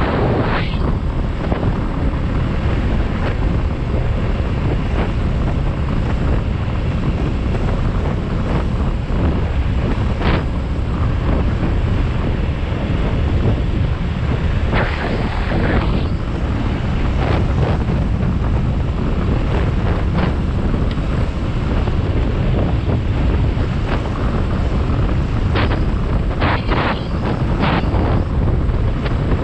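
Wind buffeting the microphone of a moving motorcycle, mixed with the bike's running and road noise: a loud, steady rush with occasional sharper gusts.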